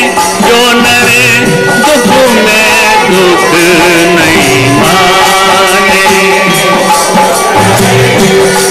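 Devotional bhajan: voices singing a wavering melody over sustained harmonium tones, with rattling hand percussion keeping the beat.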